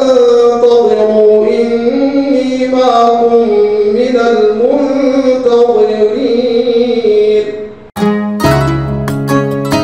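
A man's voice reciting the Quran, holding one long, drawn-out melodic phrase that slowly rises and falls in pitch. About eight seconds in it cuts off and plucked-string instrumental music starts.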